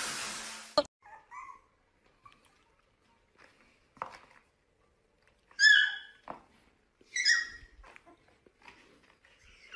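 Small puppy giving short high-pitched yelps, the two loudest about halfway through and a second and a half apart, with softer whimpers and light taps around them. A steady hiss at the start cuts off with a click under a second in.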